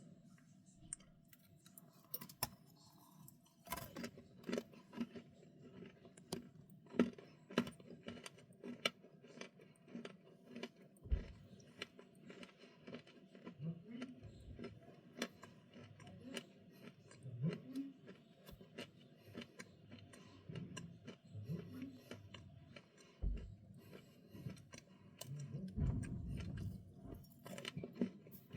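Close-miked chewing of crunchy dry snacks: many quick, crisp, irregular crunches. They start a few seconds in and go on with brief pauses.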